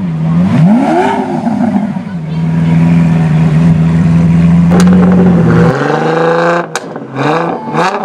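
Supercar engine revving: a quick blip about a second in, then a steady held high-rev note for several seconds. Near the end it drops into a string of rising revs broken by several sharp cracks.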